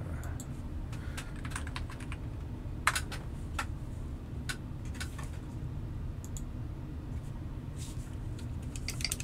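Irregular single key presses, sharp clicks, on a Feker DIY-JJK84 mechanical keyboard kit with hot-swap sockets, made while checking that a switch socket works. A fast run of clicks begins at the very end, over a low steady hum.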